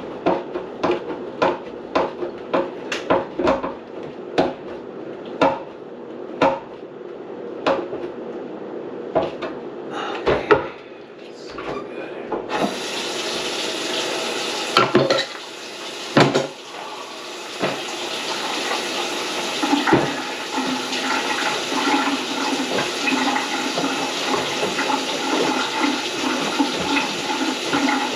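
Repeated sharp knocks at a kitchen sink, about two a second, for the first dozen seconds. Then water suddenly starts running into the sink and gushes steadily.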